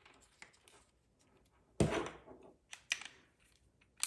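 A GoPro camera and GoPro Volta grip being handled and fitted together: one sharp plastic knock about two seconds in, then a few lighter clicks.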